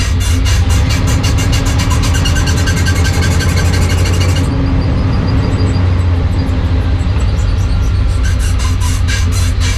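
1995 Chevrolet Suburban on the move, with a steady low drone and a fast, regular ticking from the propeller shaft that the owner suspects comes from a worn U-joint. About halfway through, the ticking fades and the upper hiss drops away, and it returns near the end.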